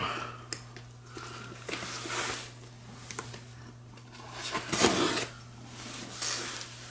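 A pocket knife slitting the packing tape on a cardboard box: three scratchy cutting strokes, with a few light knocks as the box is handled, over a steady low hum.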